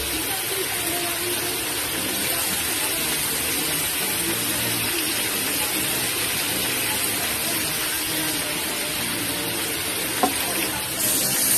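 Chicken pieces sautéing in a pan, a steady sizzling hiss.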